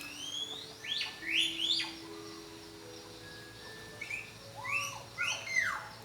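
A bird calling: two runs of short, quickly rising chirps, three or four notes each, about a second in and again about four seconds in.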